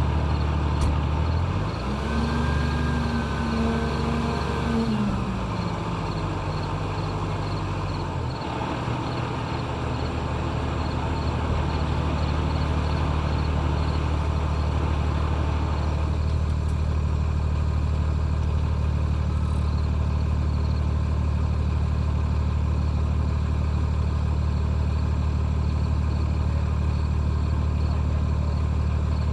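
An engine runs steadily. About a second and a half in it revs up, holds for a few seconds, then drops back to a steady idle by about eight seconds in.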